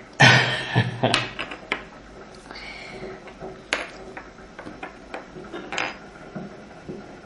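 Small porcelain teacups clinking on a table and against each other, several separate sharp clinks. Near the start a toddler sips tea noisily.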